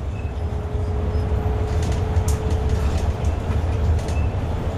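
Interior of a city bus on the move: a steady low rumble of engine and road, with a thin steady whine above it and a few faint rattles.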